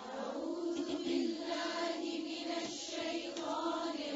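Quiet wordless vocal music, a choir-like humming tone that holds and wavers slowly in pitch, under the pause between recited phrases.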